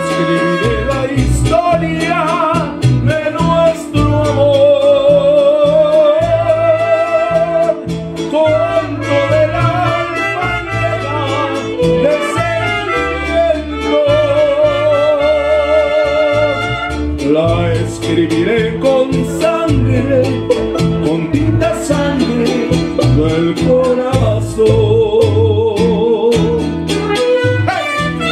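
Mariachi ensemble playing: violins carry the melody with vibrato over strummed guitars and a deep plucked bass line.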